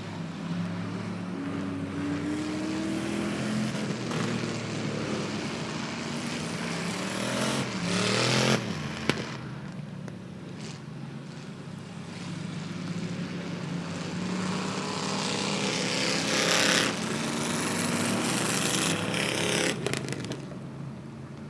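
Super Stock race cars running laps on a wet asphalt oval. Their engines rise and fall in pitch as they rev through the corners, and loud passes with a hiss of spray come about 8 seconds in and again around 17 seconds.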